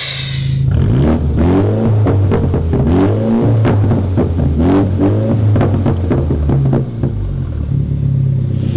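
Mini Clubman's engine and exhaust, heard from behind at the tailpipes, revved in a series of quick blips and then settling back to a steady idle near the end.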